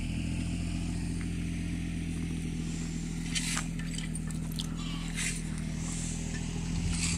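A steady low mechanical hum, like an engine running nearby, with a few brief clicks and scrapes about halfway through and again near the end.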